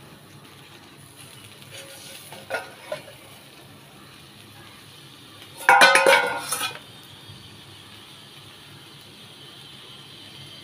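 Stainless steel bowl used as a lid being handled and lifted off a tawa: two light metal clinks, then a loud clattering of metal on metal about halfway through. A faint steady sizzle of food frying runs underneath.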